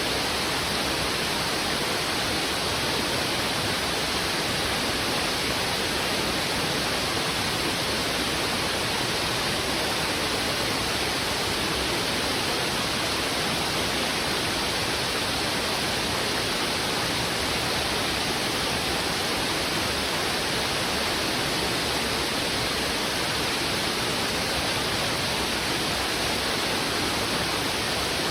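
Heavy river water rushing steadily over rocks: a dense, even rush with no breaks or distinct splashes.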